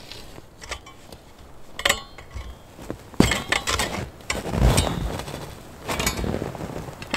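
Pieces of antler and a wooden antler bow knocking and clicking against each other as they are handled, several separate sharp clacks with rustling handling noise between them.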